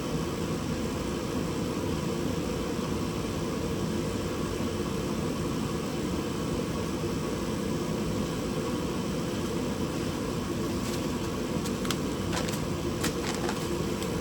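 Steady fan-like running noise, even throughout, with a few light clicks near the end.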